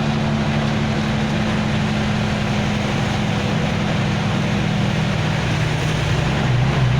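Heavy rain falling steadily, with a constant low hum underneath that drops slightly in pitch about six seconds in.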